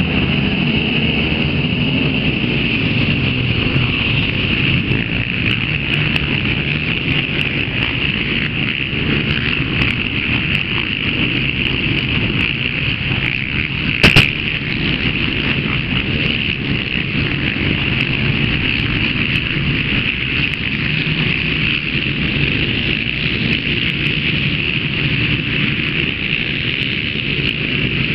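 Many racing quad engines running hard together just after a race start, a dense, steady mass of engine noise. One sharp knock about halfway through, as riders pass close by.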